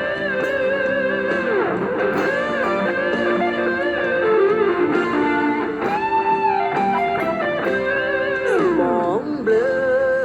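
Electric guitar played through a NUX PG2, picking sustained lead notes with string bends, and twice a long slide down in pitch, about a second and a half in and near the end.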